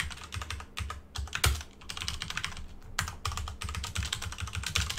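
Typing on a computer keyboard: a quick, uneven run of key clicks, with one louder stroke about a second and a half in.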